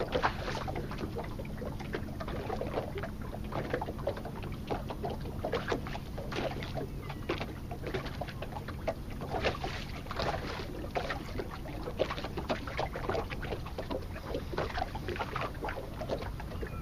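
Water lapping and splashing irregularly against the hull of a small open wooden sailboat under sail.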